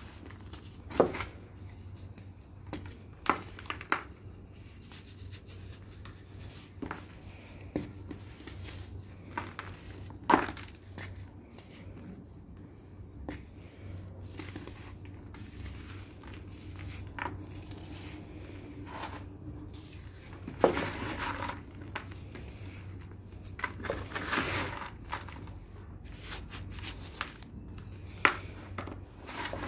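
Dry lumps of sand-and-cement mix crumbled by hand in a plastic tub: a gritty crumbling rustle broken by scattered sharper cracks, about a second in, around three to four seconds, ten seconds, twenty-one seconds, twenty-four seconds and twenty-eight seconds.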